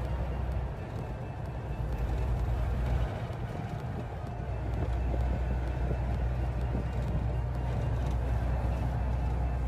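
Steady low engine rumble and road noise inside a vehicle's cab while driving on a highway.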